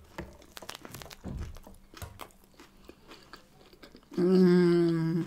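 Biting into and chewing a soft burger bun with lettuce and chopped onion: small crunches and wet mouth clicks. Then, about four seconds in, a loud, steady hummed 'mmm' lasting about a second.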